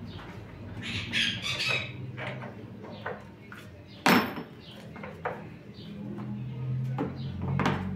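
Hand tools clinking and knocking against metal in a van's engine bay as the dead battery is worked on: scattered clicks and taps, with one louder knock about four seconds in.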